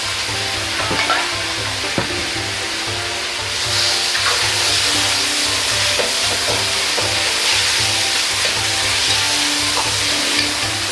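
Food sizzling and frying in an iron wok over a high-flame gas burner while it is stir-fried with a ladle. The ladle knocks against the wok twice in the first two seconds, and the sizzle swells about three and a half seconds in.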